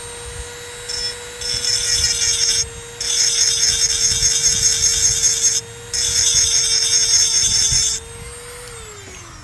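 Dremel rotary tool running at high speed with a steady whine, its carbide burr grinding into the edge of a slot in thin steel EMT conduit in four bursts of loud scraping, the longest lasting about two and a half seconds. The grinding stops about eight seconds in and the motor winds down near the end.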